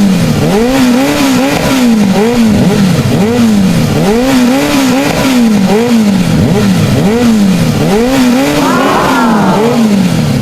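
Engine revving sound effect for a toy vehicle. Its pitch rises and falls over and over, about once every three quarters of a second. A second, higher revving tone joins near the end.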